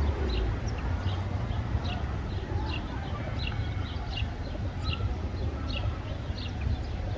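Sparrows chirping over and over, short falling chirps about two or three a second, over a steady low rumble.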